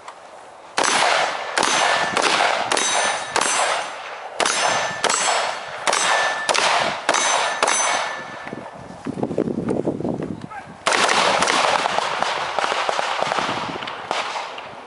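AR-15 rifle shots, about a dozen at uneven intervals over roughly seven seconds, several followed by a metallic ringing as the rounds strike steel targets. After a short softer stretch, a loud, steady rushing noise lasts about three seconds near the end.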